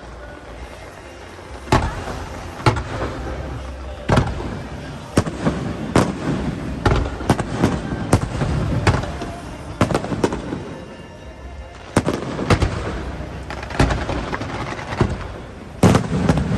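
Aerial fireworks shells bursting in a rapid, irregular series of loud bangs, starting about two seconds in, often several in quick succession.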